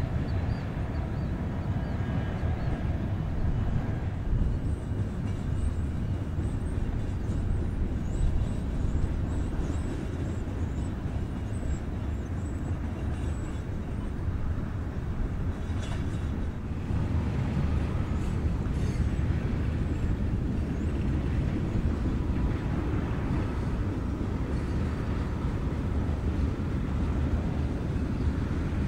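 A long freight train of tank cars and covered hoppers rolling past: a steady low rumble of wheels on rail, with faint high squeaks in the first dozen seconds.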